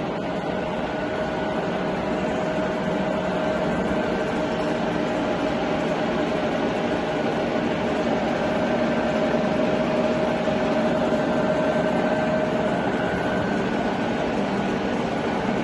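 Sachman bed milling machine running with its table traversing lengthwise at feed rate: a steady mechanical hum from the feed drive, with a steady gear whine that fades near the end.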